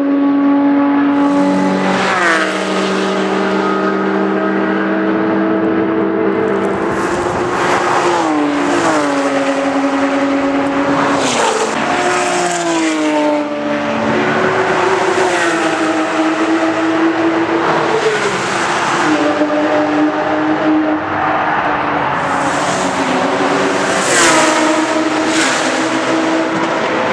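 Several Porsche 911 GT3 RS and Cup race cars with flat-six engines running at high revs as they pass one after another. The engine note holds, then drops with each gear change and pass, and the sound swells every few seconds as another car goes by.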